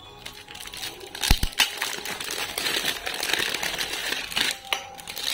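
Clear plastic shrink-wrap being pulled off a pair of metal aerosol deodorant cans, crinkling and rustling. A couple of sharp metallic clinks from the cans knocking together come just over a second in.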